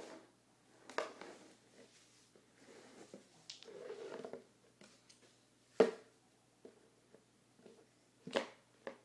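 Small red plastic child's chair knocking against a tile floor as a toddler handles it: three sharp clacks, about a second in, a louder one near the middle, and one near the end, with a few small taps between.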